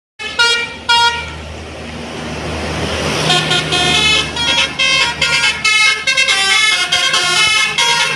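Indonesian tour bus telolet multi-tone horn: two short blasts, then a rising hiss, then a fast run of changing tones playing a tune. A low steady engine sound runs underneath.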